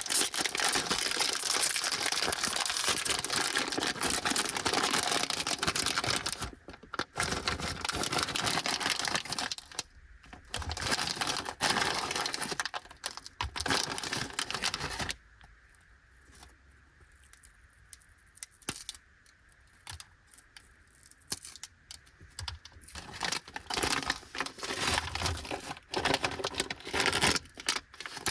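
Plastic snack wrappers crinkling and rustling as packets of Anpanman age-sen fried rice crackers are handled and opened, with scattered light clicks and taps. The crinkling stops in the middle for several seconds and picks up again near the end.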